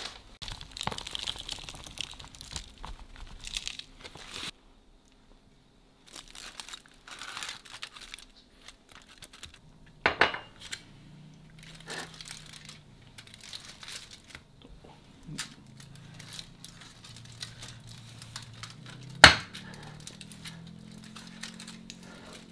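Aluminium foil crinkling and a knife and fork scraping and clicking on a plate as food is cut, with a sharp knock about ten seconds in and a louder one about nineteen seconds in.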